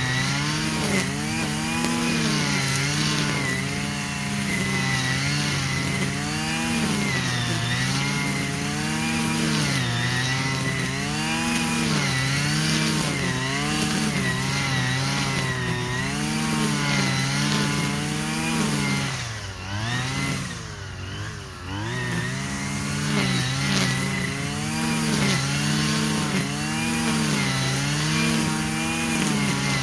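Stihl FS 120 brush cutter's two-stroke engine running after repair, its revs rising and falling over and over. About two-thirds of the way through, the revs drop low for a couple of seconds, then pick back up.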